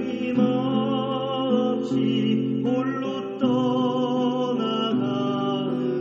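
A mixed church choir singing a slow hymn-like piece with accompaniment, holding long chords that change together every second or so.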